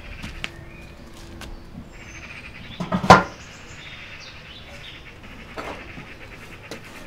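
Galvanised steel dustbin lid set down onto the bin over burning paper, a single loud metal clank about three seconds in that smothers the flames. Faint bird chirps run underneath.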